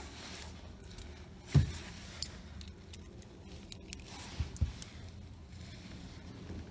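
Scattered knocks and light clicks of tools and parts being handled during dashboard reassembly, with one sharp knock about a second and a half in and two smaller ones near the middle.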